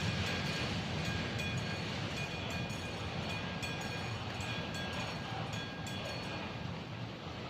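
A train passing over a level crossing, its rumble slowly fading as it moves away, with sharp wheel clicks over the rail joints that thin out near the end.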